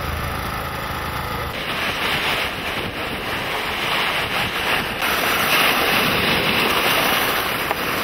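A motorcycle engine idling for about the first second and a half, then sea waves washing onto a pebble shore, louder from about five seconds in, with wind on the microphone.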